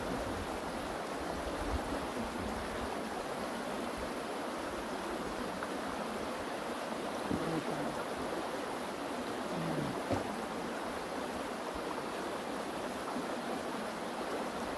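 Stream water flowing in a steady rush.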